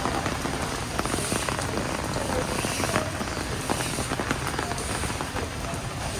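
Heavy rain falling steadily, with many individual drops striking close by as distinct sharp ticks.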